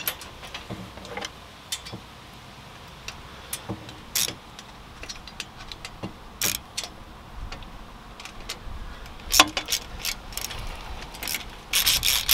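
Scattered metallic clicks and clinks of a bolt, washers and nut being fitted by hand through a steel accessory plate, with a quicker run of clicks near the end as a wrench goes on.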